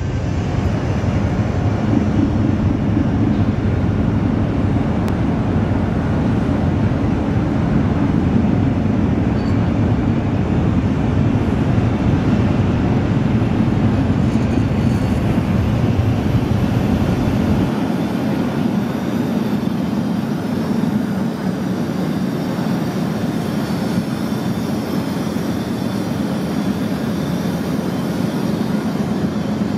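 A car ferry's engines and deck machinery running with a steady low drone as the ship pulls away from the pier. The deepest rumble drops away a little over halfway through.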